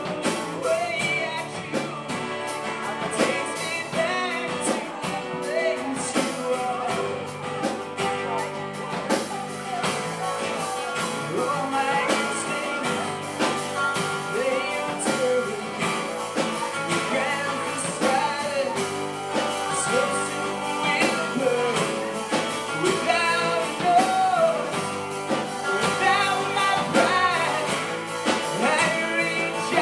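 Live acoustic band playing a song: several acoustic guitars strummed over a drum kit, with a man singing lead.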